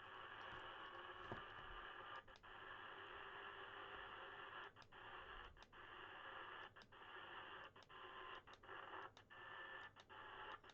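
Faint static hiss from a President George 2 CB radio's speaker on lower sideband, with no signal present. The hiss is cut by short dropouts about once a second as the channel is stepped up from the microphone.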